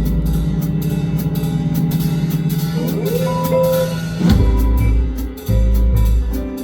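Live band playing an instrumental passage. Held notes over a low bass give way to a note gliding upward about three seconds in, then a sharp hit and heavy kick-drum strokes.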